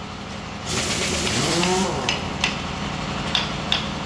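A ratchet wrench clicking in short, evenly spaced pairs as it is worked on a bolt of a small single-cylinder gasoline engine, over a steady low hum. About a second in, a loud rushing noise with a wavering pitch covers it for about a second.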